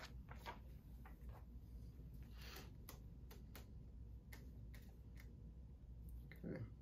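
Faint, scattered clicks and a soft rustle from a plastic Blu-ray case being handled and opened to get at the discs.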